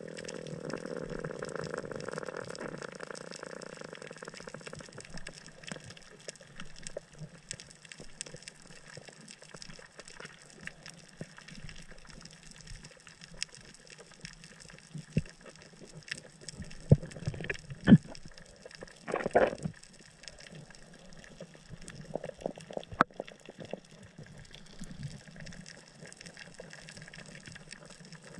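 Underwater ambience picked up by a camera underwater on a coral reef: a steady watery hiss with a louder rush of moving water in the first few seconds. Scattered clicks and a few sharper knocks follow, bunched after the middle.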